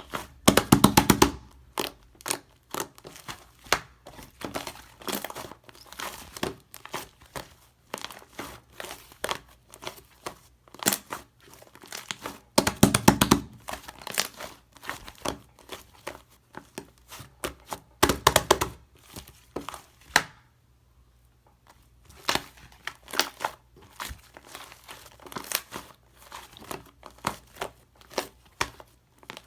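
Slime being squished and stretched by hand: a fast, uneven run of sticky clicks and crackling pops, with a few louder squelching bursts and a brief pause about two-thirds of the way through.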